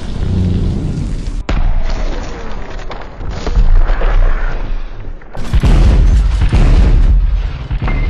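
Gatling gun fire slowed down into deep, heavy booms and rumble, changing abruptly about a second and a half in and again past five seconds.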